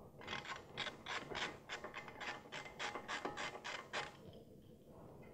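Socket ratchet clicking in quick back-and-forth strokes, about four a second, as a 12 mm bolt is backed out of the suspension mounting point; it stops about four seconds in.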